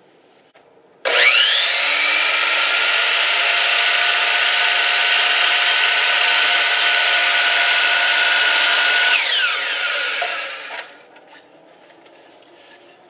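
Electric power saw starting up about a second in with a rising whine, running steadily as it cuts square across the end of a wooden board for about eight seconds, then winding down with a falling whine and stopping.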